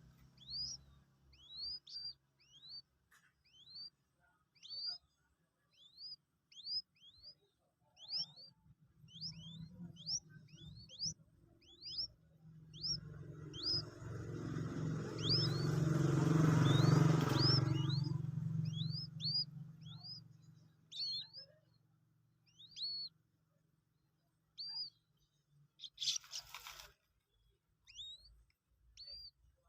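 Common moorhen chick peeping repeatedly: short, high, upward-curving peeps, about one a second. There is a louder, muffled noise for a few seconds about halfway through, and a brief burst of noise near the end.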